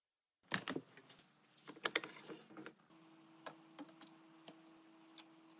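Irregular sharp clicks and knocks of metal parts being handled or worked on an antique candy drop roller, thickest in the first two seconds, with a steady low hum starting about three seconds in.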